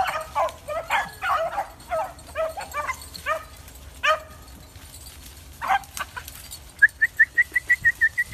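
Beagles yipping and baying in short, pitched cries, thick for the first four seconds, with one more cry a little before six seconds. Near the end comes a quick run of high chirps, about six a second.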